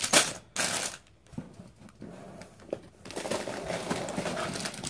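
Plastic bags of LEGO pieces being handled: the thin plastic crinkles and the loose bricks inside click and rattle against each other. Loud rustling at the start, a quieter moment with a few clicks, then steady crinkling from about three seconds in.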